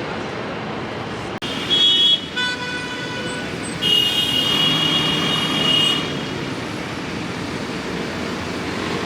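Street traffic noise, with two loud high-pitched tones from vehicles: a short one about two seconds in and a longer one lasting about two seconds from around four seconds in.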